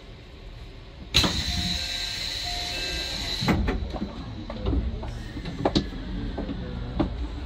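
A sudden loud hiss of air about a second in, lasting about two seconds, from a train's pneumatic system. After it, single clacks about a second apart as the wheels pass over rail joints slowly.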